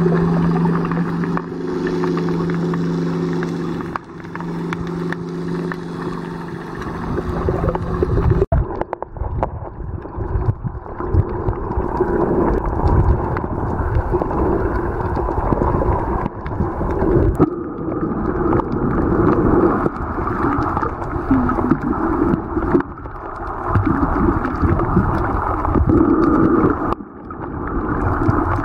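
Underwater sound picked up by a snorkeler's submerged camera: water rushing and gurgling around the microphone. For about the first eight seconds a steady low motor hum, like a boat engine heard through the water, runs beneath it and cuts off abruptly.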